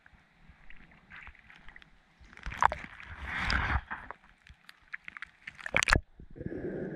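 Lake water lapping and splashing against a camera held at the surface, with small clicks and pops. There is a rush of splashing about two and a half seconds in and a sharp burst just before six seconds as the camera dips under, after which the sound turns muffled and underwater.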